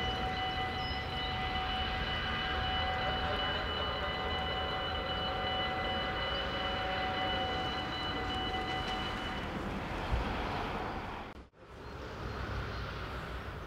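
Dutch level-crossing warning bell ringing steadily over a constant rumble, and stopping about nine seconds in as the barriers finish rising. After a sudden break near the end, a crossing bell is ringing again.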